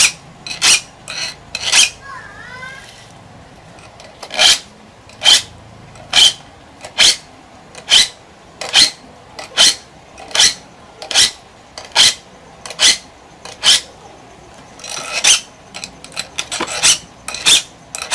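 A blade being sharpened with regular rasping strokes, about one stroke every 0.8 seconds. There is a pause about two seconds in and a quick flurry of strokes a little after fifteen seconds.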